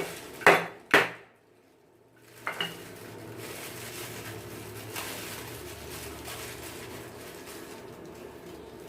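Kitchen pots and utensils clattering: sharp knocks in the first second, the loudest about a second in, and another about two and a half seconds in, then a steady low hum.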